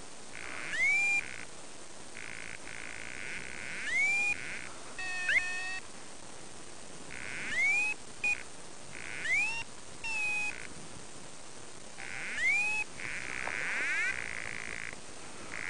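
Repeated electronic chirps from a handheld device, one every second or two. Each is a short rising tone that levels off, over a burst of hiss that starts and stops sharply.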